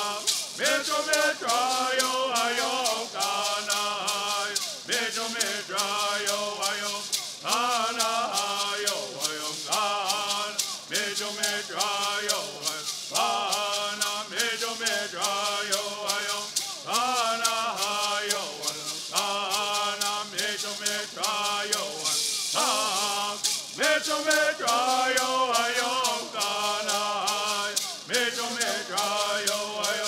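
Native American bird singing: a group of men chanting a bird song together in short repeated phrases, each shaking a gourd rattle in a steady, quick beat.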